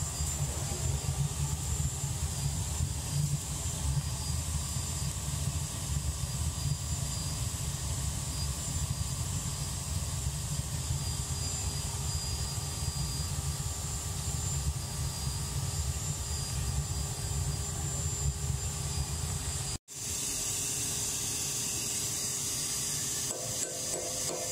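Steady roaring rumble with a hiss from a gas-fired smelting furnace running hot, melting assay samples in a crucible. It cuts off abruptly about 20 seconds in.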